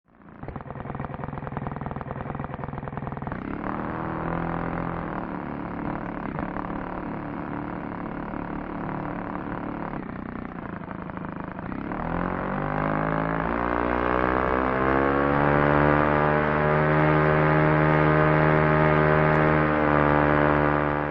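Engine running steadily, then speeding up about twelve seconds in and holding at the higher speed.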